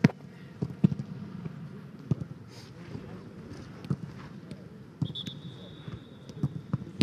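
Footballs being kicked and passed on a grass pitch: a string of sharp, dull thuds, the loudest right at the start, then about one every second or so. Near the end a thin, high, steady tone sounds for about two seconds.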